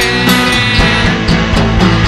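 Rock music: a band's instrumental passage with a steady drum beat between sung lines.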